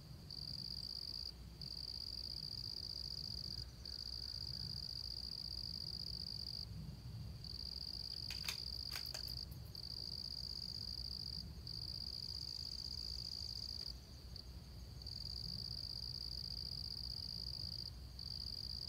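Crickets trilling in a steady high-pitched chorus that breaks off briefly every few seconds, with a few faint clicks about halfway through.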